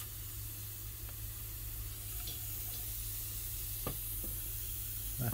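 Compressed air hissing steadily from a poorly sealed hose coupling while a nail gun's air cylinder is filled from a compressor to about 90 psi. A single short click about four seconds in.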